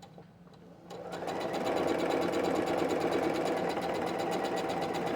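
Electric sewing machine starting up about a second in, then stitching steadily at speed, with a rapid, even needle rhythm.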